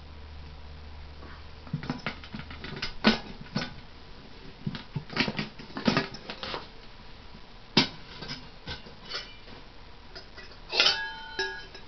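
Scattered clinks and knocks of metal cookware being handled, with one clink that rings on briefly near the end.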